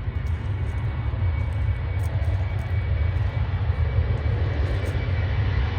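Embraer E195 airliner's turbofan engines running at takeoff power: a steady heavy low rumble with a faint high whine over it.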